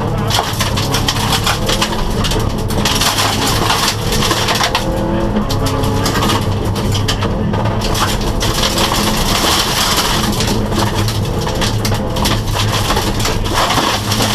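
Subaru rally car's flat-four engine running hard at high revs, the revs rising and falling, heard from inside the stripped cabin. Loose gravel clatters and hisses against the underbody and wheel arches, heavier in several stretches.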